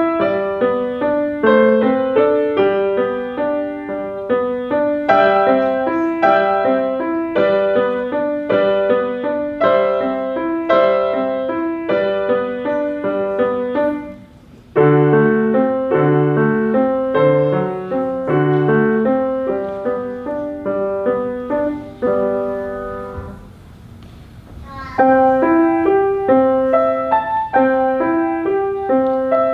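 Solo piano playing a classical piece as an even run of single notes. It breaks off briefly about halfway through and again for a couple of seconds later, then carries on.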